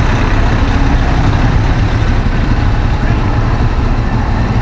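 Loud, steady street noise while moving with a crowd: a heavy deep rumble under a dense hiss, with voices mixed in and a bus alongside.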